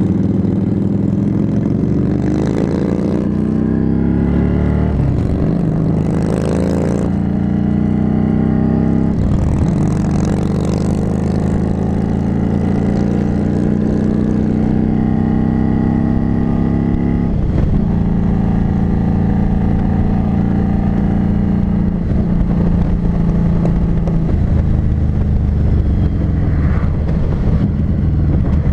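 Harley-Davidson Street 500's liquid-cooled V-twin, heard from on the bike while riding. Its revs climb and drop back several times in the first half as it pulls up through the gears, then it cruises at a steady pitch.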